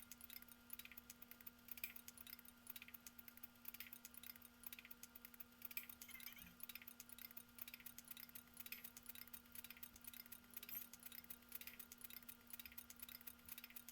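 Faint, rapid, irregular clicking over a steady low hum.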